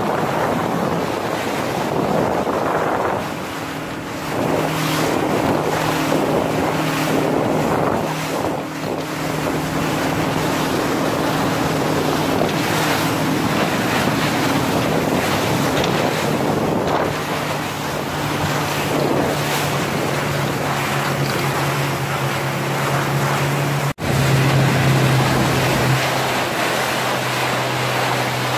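Motorboat engine running steadily under heavy wind buffeting on the microphone and the wash of sea water along the hull.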